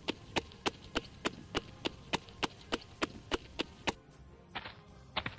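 Quick footsteps of hard shoes on pavement, evenly spaced about three a second, growing fainter as they move away and stopping about four seconds in, followed by a couple of softer scuffs.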